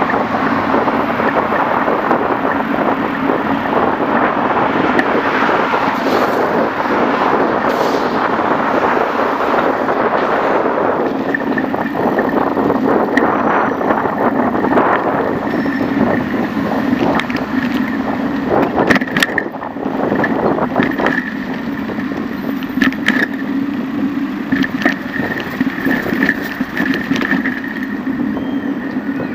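Steady rush of wind over the microphone and tyre noise from a moving bicycle on asphalt, with a low hum throughout. Several sharp clicks and knocks come in the second half, as the bike rattles over bumps.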